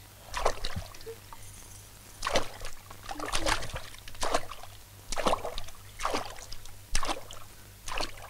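A person wading through shallow water, each stride a sloshing splash, about one step a second.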